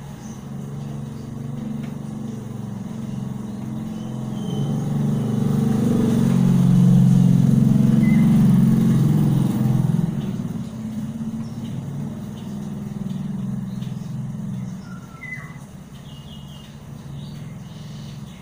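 Motorcycle engine passing close by: it grows louder over the first several seconds, is loudest a little before the middle, then fades as the bike rides away down the lane.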